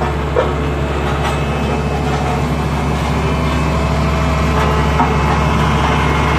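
Dynapac single-drum road roller's diesel engine running steadily at close range, a loud, even, low drone.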